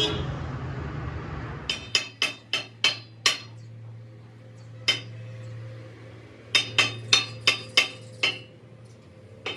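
Hammer blows on steel, each strike ringing: a quick run of about six, a single blow, then another run of about six, as a truck rim is worked. A steady low machine hum runs underneath and drops lower about two seconds in.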